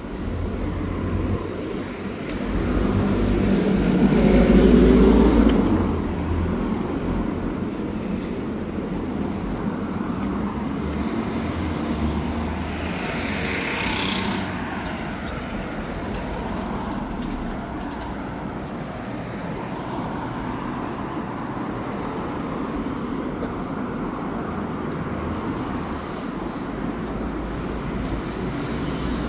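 Road traffic: vehicles passing along a city street, the loudest going by about four to six seconds in and another about thirteen seconds in.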